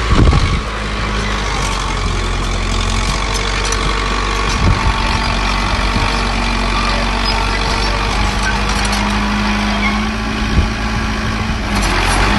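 Heavy diesel engine of earthmoving machinery running steadily, with a few short knocks: one right at the start, one a little under halfway, and one near the end.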